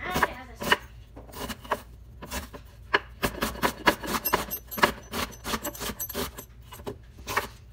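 Chef's knife chopping an onion on a wooden cutting board: a run of irregular knocks of the blade cutting through onto the wood, quickening to about three or four a second after the first few seconds.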